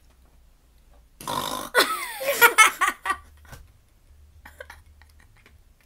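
Girls laughing loudly in a burst of about two seconds, starting about a second in, followed by only faint small clicks.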